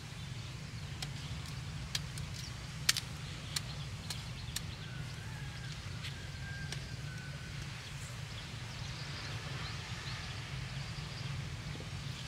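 Scattered sharp snaps and clicks from freshly pulled cauliflower plants being handled and trimmed by hand, mostly in the first half, over a steady low hum.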